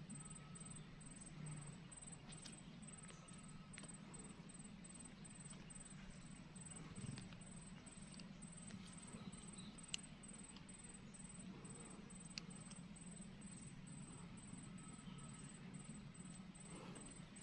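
Near silence: faint outdoor background with a steady low hum and a few soft scattered clicks and rustles.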